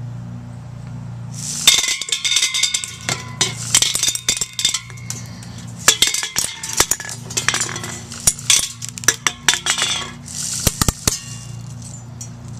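Homemade blowgun made from a ballpoint-pen tube, blown hard so that BBs stream out in rapid fire, rattling and clinking as they hit something hard, over the hiss of the breath. It fires in three spells, starting about a second and a half in: a long one, a second long one, and a short last one that ends about a second before the end.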